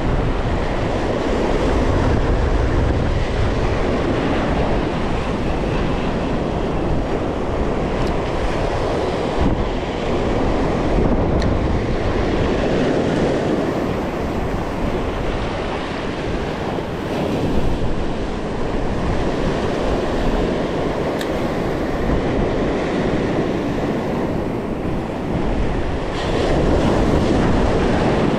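Ocean surf washing over a rocky shoreline, with wind buffeting the microphone in a steady low rumble.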